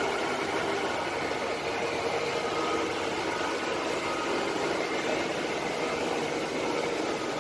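Steady drone of running factory machinery: an even hiss with a few faint humming tones.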